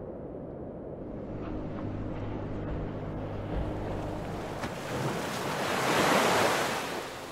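Ocean surf: a wave builds and breaks on the sand. Its rushing wash swells to its loudest about six seconds in, then dies back, over a steady wind-like rumble of sea.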